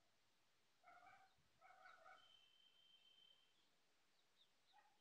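Faint animal and bird calls: two short calls about a second in, then a long steady high whistled note and a few quick chirps near the end.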